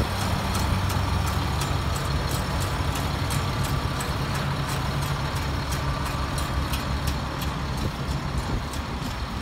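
Diesel engine of a 2001 Freightliner work truck idling steadily, a low even hum with a light regular ticking, growing a little fainter toward the end.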